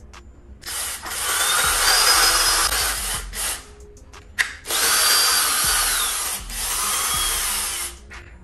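Power drill running in three bursts of a couple of seconds each, its motor whine sliding down in pitch as it slows, while window-blind mounting brackets are fixed to the window frame. A sharp click comes between the first two bursts.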